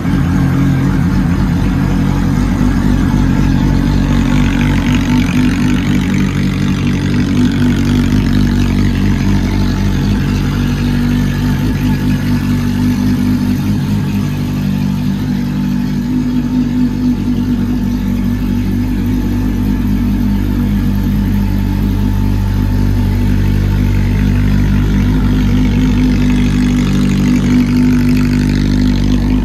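Honda CB400 Super Four VTEC Revo's inline-four engine idling steadily through a titanium slip-on muffler.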